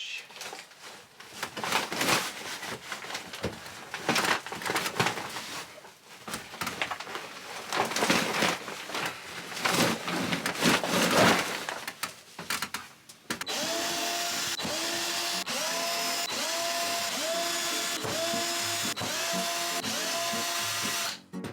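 Irregular scraping and knocking, then, from about two-thirds of the way in, a power drill running steadily with a whine that rises in pitch again and again, about once a second.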